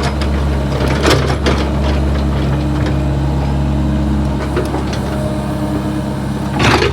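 Backhoe's diesel engine running steadily, with a few sharp knocks about a second in and a louder one near the end.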